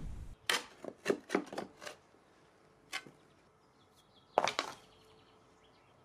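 Spade digging into soil in a pit: a string of sharp scrapes and knocks of the blade cutting earth. There is a quick cluster in the first two seconds and the loudest strikes come about four and a half seconds in.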